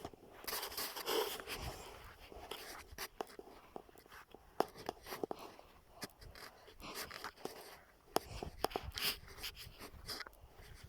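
Handling noise from a phone carried while walking uphill: irregular rustling and scraping, with many scattered clicks and taps.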